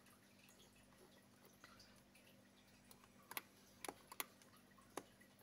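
Near silence broken by a handful of faint computer mouse clicks, mostly in the second half, over a faint steady hum.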